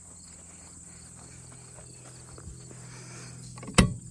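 Quiet outdoor background of chirping insects over a low steady hum, broken near the end by one sharp knock.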